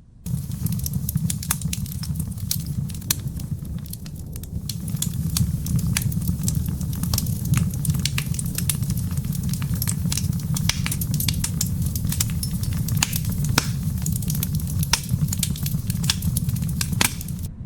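Fire crackling with frequent, irregular sharp pops over a steady low rumble. It cuts in abruptly at the start and cuts off abruptly near the end.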